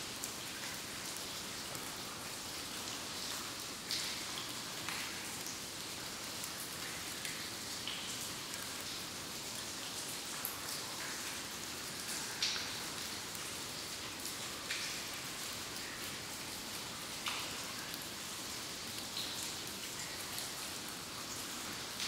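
Water dripping in a cave: single drops falling irregularly, about one every two seconds, over a steady hiss.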